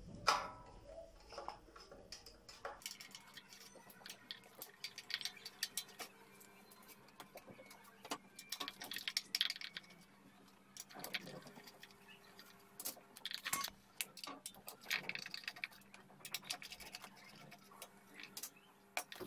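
Scattered clicks and ticks of a screwdriver working the screws of ceiling-fan blade brackets, with small metal screws clinking as they are handled and set down.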